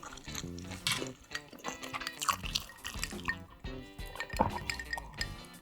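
Close-miked wet, juicy eating sounds, with many small clicks, over light background music.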